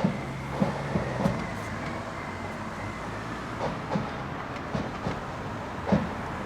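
Parade band drums struck in sparse, irregular beats, with the strongest hits low and thudding, over a steady low hum.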